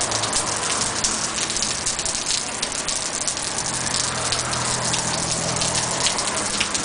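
Heavy rain pouring down, a dense steady patter of drops, with a faint low hum underneath.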